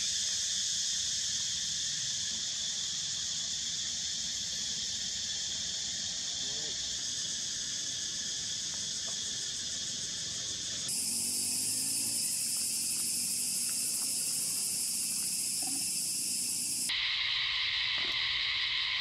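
Steady, high-pitched chorus of insects, which shifts abruptly higher about eleven seconds in and lower again near the end.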